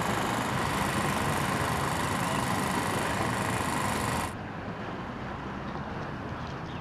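Steady outdoor street ambience with a loud, even hiss and a faint steady hum. It cuts off abruptly about four seconds in, leaving a quieter outdoor background.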